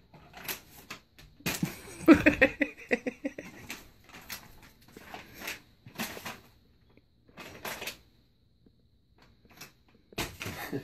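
Scattered knocks, taps and light clatters of things on a wooden armoire top. About two seconds in there is a short burst of a voice, the loudest sound.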